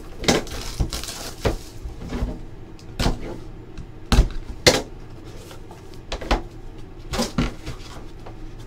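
Leaf Trinity football hobby box being handled and opened by hand: irregular knocks and taps of cardboard on the table, with rustling and tearing of cardboard and packaging between them. The loudest knocks come a little past the middle.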